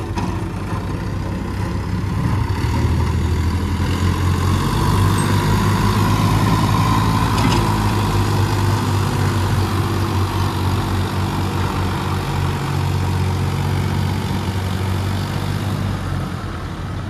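Farm tractor's diesel engine working steadily under load as it pulls a heavily loaded two-wheel trolley. It grows louder about two seconds in as the tractor draws near, then eases off near the end.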